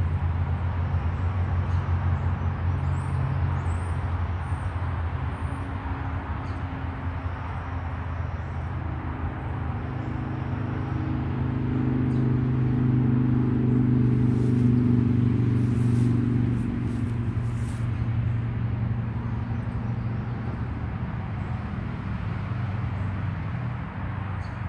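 Car engine running with a steady low drone; a higher engine note swells about ten seconds in and fades away by about eighteen seconds.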